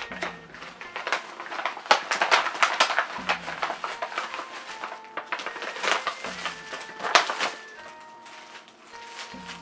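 Packaging crinkling and rustling with sharp clicks and taps as items are handled and unwrapped, busiest through the middle and tailing off near the end. Light background music plays under it.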